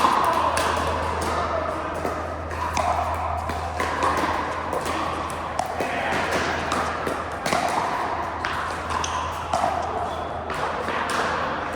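Pickleball paddles hitting a plastic pickleball: sharp pops at irregular intervals over a steady low hum.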